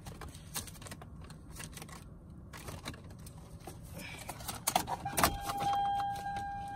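Car keys jangling and clicking at a Toyota Camry's ignition. About five seconds in comes a sharp click, then a steady high electronic tone that keeps sounding.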